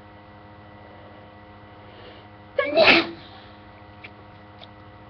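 A single sneeze, about halfway through, from a person with a head cold, after a short breath in. A steady electrical hum runs underneath.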